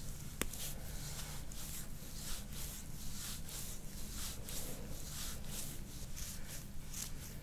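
Hands massaging bare skin on a person's upper back: a soft brushing rub repeated about two to three times a second, over a steady low hum. A single sharp click comes about half a second in.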